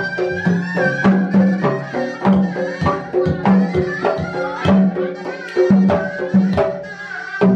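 Sundanese pencak silat accompaniment music (kendang pencak): kendang hand drums beat a steady rhythm under a held, wavering reedy melody from a tarompet shawm, over a steady low drone.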